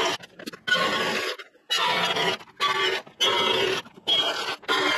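Metal cutting on stainless steel angle at a horizontal metal-cutting bandsaw: harsh, rasping scrapes with a ringing edge, in short strokes about one a second with brief gaps between.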